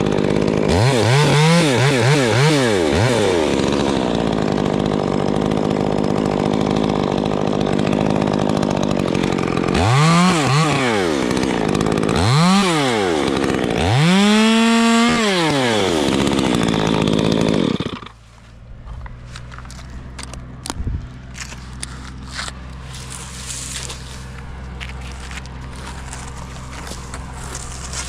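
Small top-handle chainsaw revving up and down several times, running steadily at high speed for a few seconds while it cuts pine limbs, revving hard again, then shutting off about eighteen seconds in. Light knocks and rustling follow.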